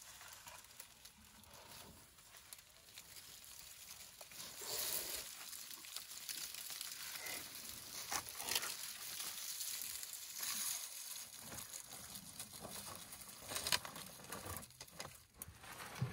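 African elephant browsing in dry bush: rustling and crackling of dry twigs and leaves, with several sharper snaps, the loudest a little before the end.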